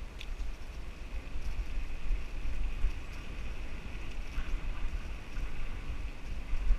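Wind buffeting a bicycle-mounted action camera's microphone while riding, a gusty low rumble that rises and falls, with a steady faint high-pitched drone behind it.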